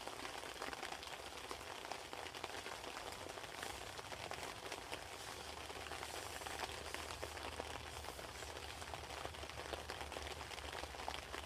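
Steady pattering of rain, a dense hiss of many small drop ticks with no letup.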